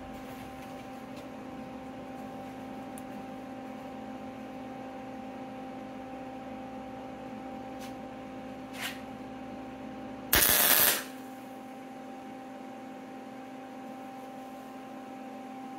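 A MIG welder hums steadily. About ten seconds in, a single short tack weld crackles loudly for under a second. The welder is set hot for 0.023 wire, which turns out a little too hot.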